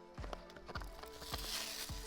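Background music with a steady beat, with a hiss coming in about a second and a half in.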